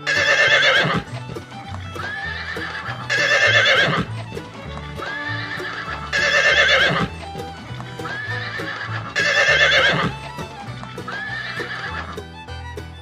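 Horse neighing: four loud whinnies about three seconds apart, each lasting about a second, with softer calls between them, over background music.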